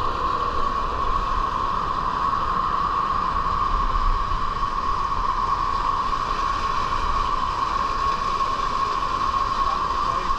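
Steady rush of water gushing and spraying into the top of a water slide, a constant hissing noise.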